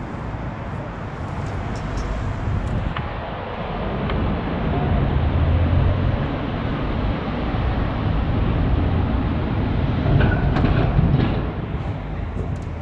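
A train passing. The noise swells over the first few seconds, stays loud through the middle with a steady low hum, and eases off near the end.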